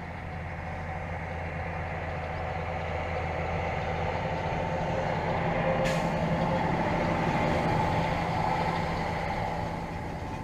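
A motor vehicle's engine running with a steady low hum, growing louder to a peak about eight seconds in and then easing off, as a vehicle passing by does. A brief sharp click sounds about six seconds in.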